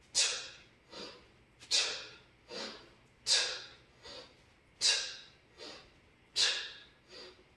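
A man breathing hard through a set of two-handed kettlebell swings: a sharp, forceful exhale on each swing, five times about a second and a half apart, each followed by a shorter, softer breath.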